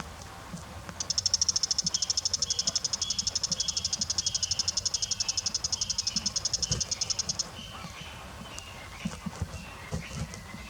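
Bull-headed shrike calling: a fast, rattling series of high, sharp notes, about ten a second, starting about a second in and lasting some six seconds, then a few fainter, scattered notes.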